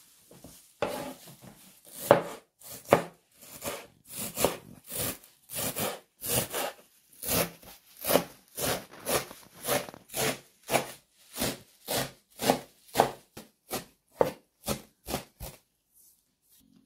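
A kitchen knife chopping a pile of fresh herbs on a wooden cutting board: a steady run of knocks of the blade on the board, about two a second. It starts about a second in and stops shortly before the end.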